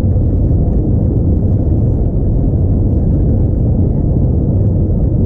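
Steady low rumble of cabin noise inside an Airbus A321neo rolling on the ground: engines at low power and the aircraft trundling over the pavement, with no rise in engine pitch.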